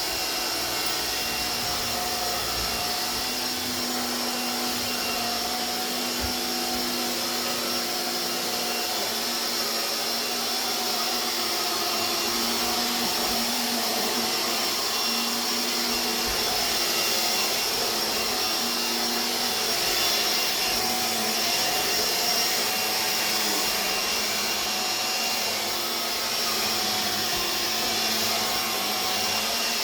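Hoover Air Cordless BH50121 cordless vacuum cleaner running steadily: a constant rush of air with a steady high motor whine and a low hum.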